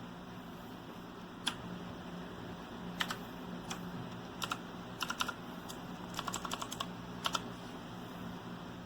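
RK Royal Kludge S108 typewriter-style mechanical keyboard with clicky blue switches, keys struck one at a time at irregular intervals, then a quick run of keystrokes a little past halfway.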